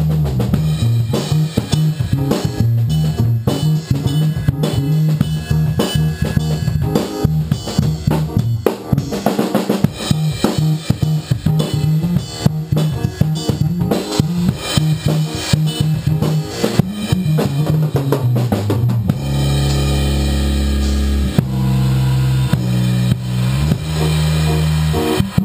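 Small band rehearsing a funky jazz piece: a drum kit plays a busy beat over an electric bass line, with an electric keyboard. About 19 seconds in, the busy drumming gives way to long held bass notes.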